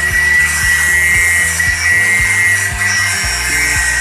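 Handheld angle grinder cutting into a metal pipe, a steady high whine with a grinding hiss. Backing music with a steady beat plays over it.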